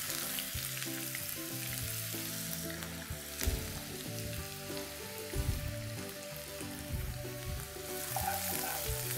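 Chopped onions and green chillies sizzling in hot oil in a non-stick kadai, with a steady hiss and a few soft knocks. A wooden spatula stirs them near the end.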